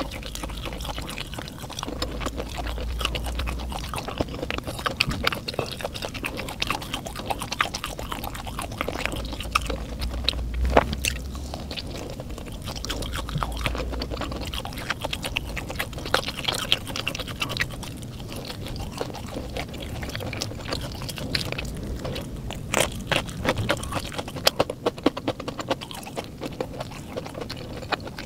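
Close-miked mukbang chewing of a fried, cheese-filled ball: a steady run of irregular wet mouth clicks and soft crunches.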